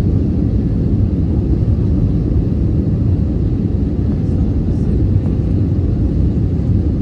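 Airbus A319 cabin noise on approach: a steady low rumble of the jet engines and rushing air, heard from inside the cabin.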